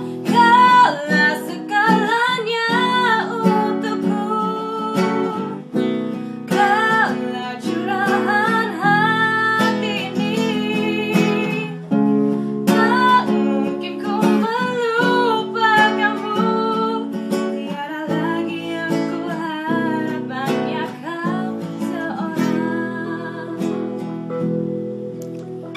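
A woman singing over strummed acoustic guitar chords, her held notes wavering with vibrato.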